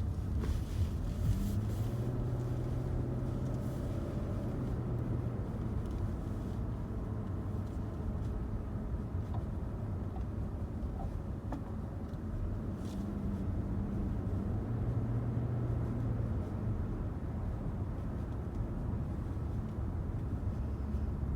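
2011 Lexus LS460 with its 4.6-litre V8 running, a steady low hum, and a few faint, irregular clicks from the brake actuator: the clicking and ticking the owner is recording as a problem.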